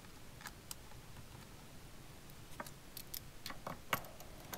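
Scattered small clicks and taps from fingers working the laptop cooling fan's plastic cable connector loose, about nine irregular ticks, more of them in the second half and the loudest about four seconds in.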